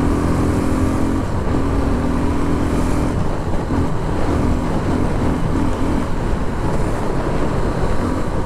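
Suzuki Gixxer SF 250's single-cylinder engine running hard while the motorcycle is ridden at speed, with heavy wind rumble on the microphone. A steady engine tone holds for about three seconds, then comes and goes in short pieces.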